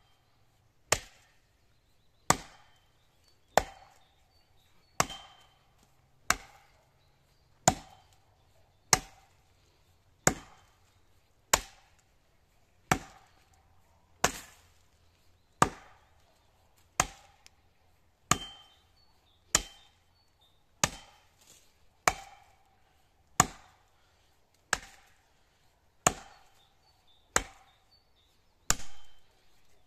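Axe blows chopping into the trunk of a standing pine tree: a steady rhythm of sharp wooden chops, about one every second and a quarter, each with a brief ring after it.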